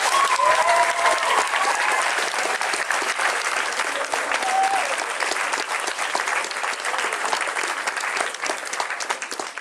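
A hall full of people applauding, with a few voices calling out over the clapping in the first couple of seconds. The applause slowly thins toward the end.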